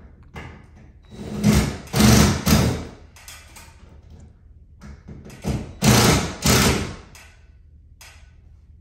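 A few loud thuds and knocks in two groups, one about a second and a half in and one about five and a half seconds in, with a few lighter clicks between them.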